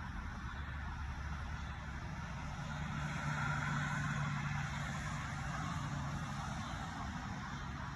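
Steady low rumble and hum of motor traffic, swelling a little about three to five seconds in.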